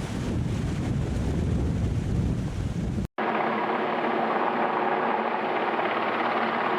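Wind buffeting the microphone over the rush of surf. About three seconds in it cuts off abruptly, and a steady mechanical drone with a few held tones follows.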